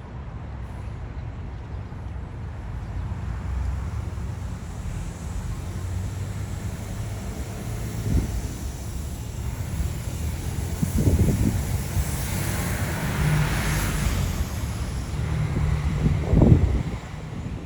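Wind buffeting the microphone, a rough low rumble that swells into a broader rush of noise about three-quarters of the way through, with a few brief low gusts.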